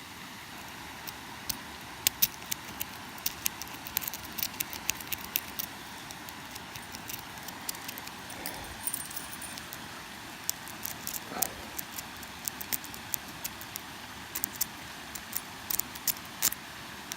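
Lock-pick rake scrubbing the pin stack of a cheap 63mm padlock: quick, irregular light metallic clicks and ticks as the pins are raked, in busy spells near the start and again near the end.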